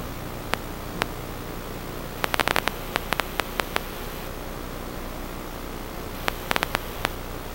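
Steady static hiss with a low hum underneath, broken by two clusters of sharp clicks, the first about two seconds in and a shorter one near the end.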